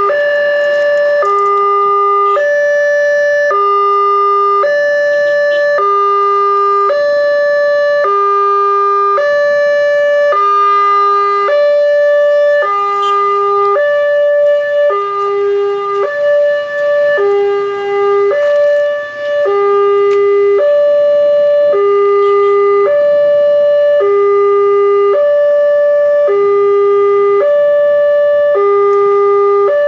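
A railway level crossing's electronic warning alarm alternates steadily between a low tone and a higher tone, each held for just over a second. It signals that a train is approaching and the barriers are down.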